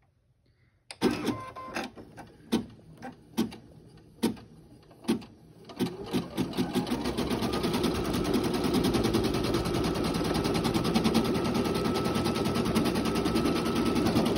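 Baby Lock Flourish 2 embroidery machine starting up: a few separate clicks about a second apart, then, about halfway through, fast, steady stitching.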